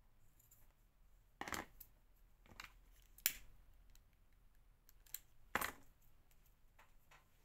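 Scissors snipping ribbon or fabric: about five short, separate snips, three of them louder.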